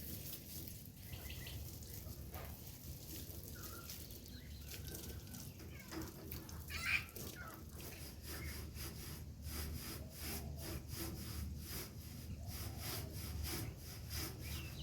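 Quiet backyard background: a low steady hum with a few short bird calls, the loudest about seven seconds in, and faint rubbing and clicking of light handling in the second half.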